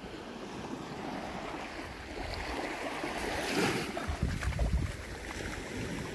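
Sea waves washing on the beach, with wind buffeting the microphone in gusts, strongest a little after halfway.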